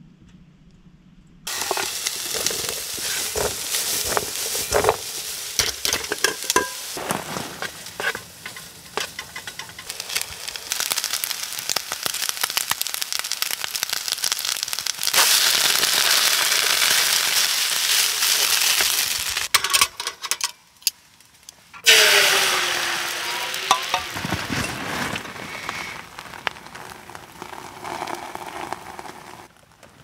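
Fried rice sizzling in a frying pan, stirred and scraped with a spatula in lots of small clicks. Near the end it breaks off briefly, then a fresh, loud burst of sizzling starts and fades as beaten egg hits the hot pan for the omelette.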